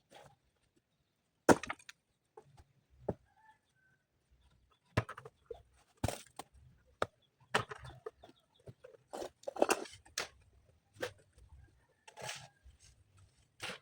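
Irregular sharp knocks and clacks, about a dozen spread unevenly, the loudest about a second and a half in: hand work on stones for a foundation.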